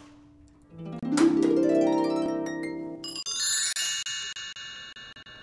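Magical transformation sound effect: a swelling pitched tone about a second in, then a bright shimmer of high twinkling chimes near three seconds that slowly fades.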